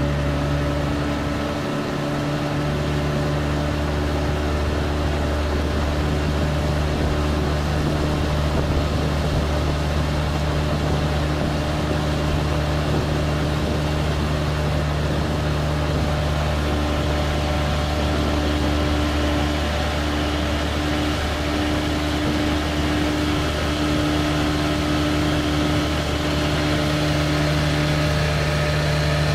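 1997 Johnson 25 hp two-stroke outboard motor running at a steady cruising speed, with water rushing along the hull.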